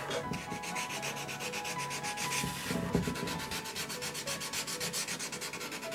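Sandpaper worked by hand with the fingertips over carved wooden leaf ornament, in quick back-and-forth scratchy strokes, several a second.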